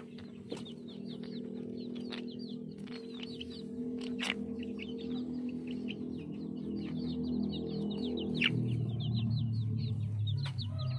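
Chickens clucking and peeping: many short, high chirps come in quick succession throughout. Underneath runs a steady low hum that grows louder about eight and a half seconds in.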